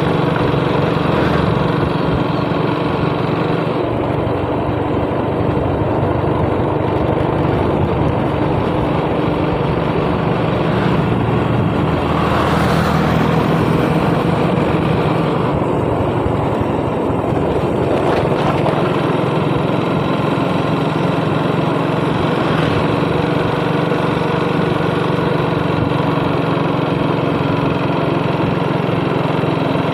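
Motorcycle engine running steadily at cruising speed, heard from the rider's seat with wind and road noise. About halfway through there is a brief swell of noise.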